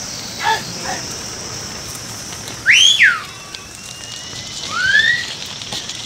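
A sheep flock on the move: two short bleats in the first second. Then a shepherd's loud whistle that rises and falls about halfway through, and a second, rising whistle near the end, calling the flock on. A light patter of many hooves on the road runs under it.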